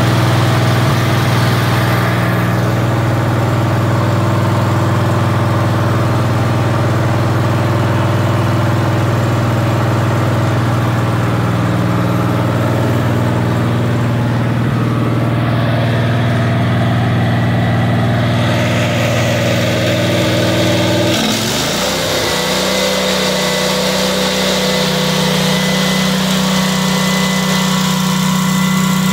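Generac 10,000-watt generator's 19 hp overhead-valve engine running steadily after its carburettor has been cleaned. About three quarters of the way through, its note dips briefly and settles into a different steady pitch.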